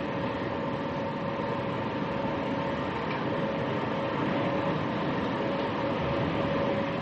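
Steady machinery hum: a dense rumble with two held tones, one in the middle range and one higher, running without a break.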